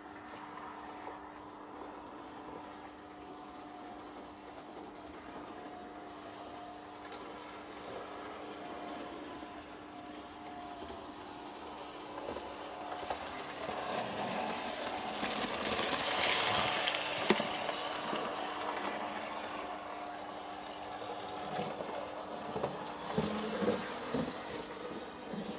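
Märklin E19 (37691) model electric locomotive running light on metal M-track, its motor and gears whirring and its wheels rattling over a steady hum. It grows louder to a peak about two-thirds of the way through as it passes close by, then fades, with a few clicks near the end.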